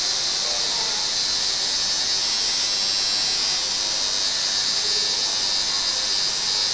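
Electric tattoo machine running with a steady high buzz.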